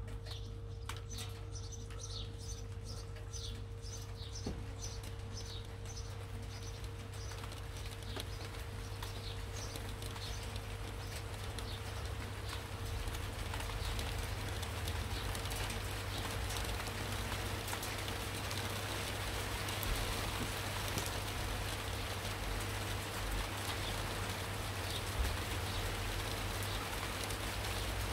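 Steady rain getting heavier. A songbird chirps again and again, short falling chirps, through the first third or so. A faint steady hum runs under it.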